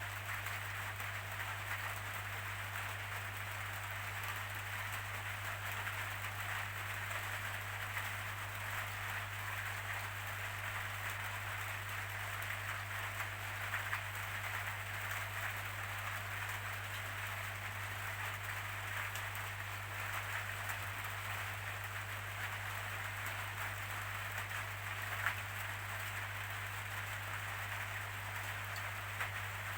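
Steady rainfall, an even patter of drops with a couple of sharper drop hits, over a steady low hum.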